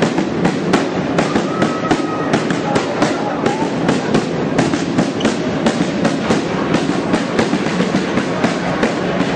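Arena crowd din with a dense run of sharp cracks or claps, several a second.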